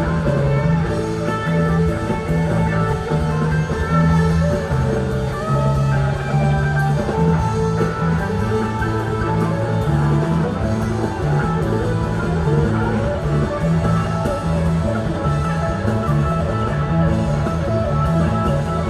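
Live rock band playing an instrumental passage: electric guitar over a moving bass line and drums, with no vocals.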